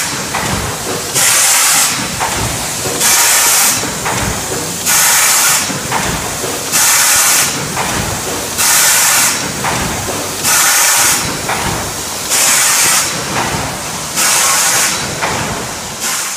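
Print-and-apply labeling machine running, with a sharp hiss of compressed air about every two seconds (eight bursts, each under a second) over a steady mechanical hum. This is the pneumatic applicator blowing or tamping a label onto each item.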